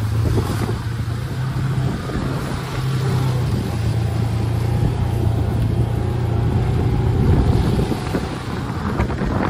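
Side-by-side utility vehicle's engine running with a steady low hum as it drives across grassy paddock, heard from the open cab.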